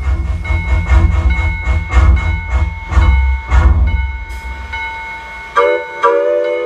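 Lowrey Majesty home organ playing: a passage over deep bass notes and a steady drum-rhythm beat that dies away about four seconds in. Near the end a sustained chord sounds, cuts off briefly and is sounded again and held.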